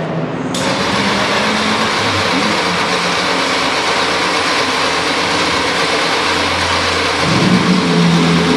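The Ford Cosworth DFV V8 of a 1976 McLaren M26 Formula 1 car running at a steady idle. It comes in abruptly about half a second in, and its note shifts lower and fuller about seven seconds in.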